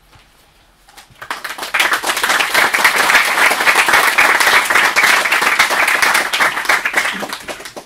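Audience applauding: the clapping starts about a second in, builds quickly to a full round, and dies away near the end.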